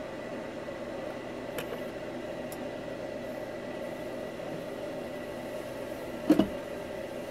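A steady background hum with a faint high steady whine in it. About six seconds in, two quick knocks as a tool is handled on a wooden workbench.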